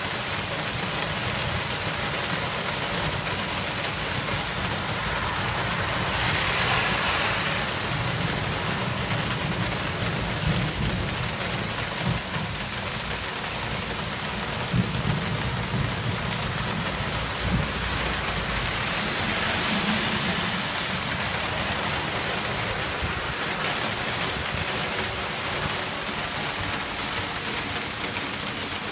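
Hailstones falling steadily on stone paving and gravel, a dense, even hiss of many small impacts.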